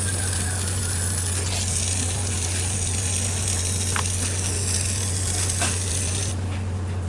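Steady loud hissing over a low, even hum, with a couple of faint clicks; the hiss drops away about six seconds in while the hum carries on.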